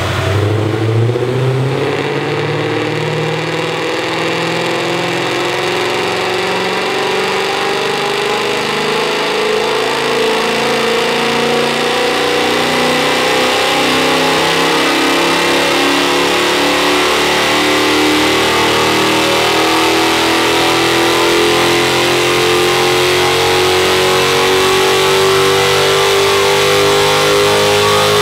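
Mercedes-Benz C63 AMG's 6.2-litre 90° V8, breathing through an iPE Valvetronic exhaust, pulling under load on a chassis dyno, its note climbing slowly and steadily in pitch as the revs build through one long pull.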